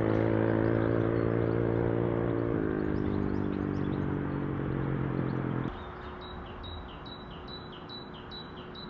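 A steady engine hum drops slightly in pitch about two and a half seconds in, then cuts off abruptly near the middle. A bird then repeats a short high chirp about three times a second.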